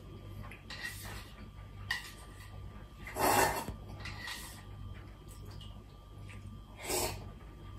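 A person slurping udon from a bowl held up to the mouth: two loud slurps, a longer one about three seconds in and a short one near the end. Faint taps of chopsticks on the bowl come between them, over a low steady hum.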